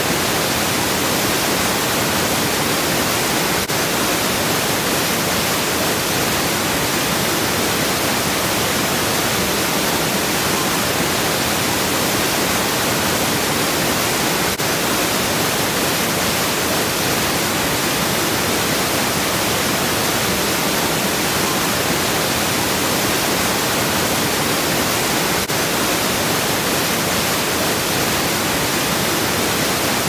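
Whitewater cascade rushing over rocks: a loud, steady rush of falling water that does not change.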